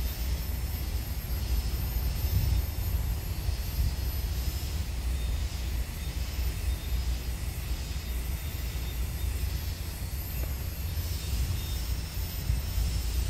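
Handheld grinder running steadily while buffing a stick-welded root bead clean of slag, a steady motor noise with a faint high whine.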